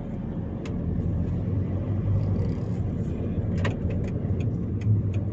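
Car driving slowly, heard from inside the cabin: a steady low engine and road hum, with a few light clicks in the second half.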